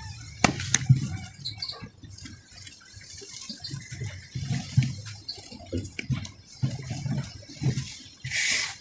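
Bare hands crumbling and patting dry powdery red dirt: soft crunches and repeated dull thuds, with a few sharper clicks about half a second in and a louder brief hiss near the end.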